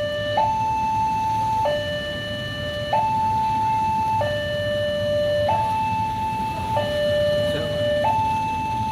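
Railway level-crossing warning alarm sounding while the barrier is down: an electronic two-tone hi-lo signal, switching between a higher and a lower note about every 1.3 seconds.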